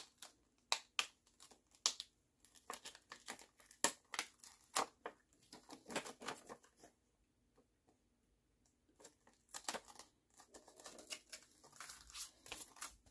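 Clear plastic stamp sheet and its packaging crinkling and crackling as they are handled, in short irregular bursts with a quiet stretch a little past the middle.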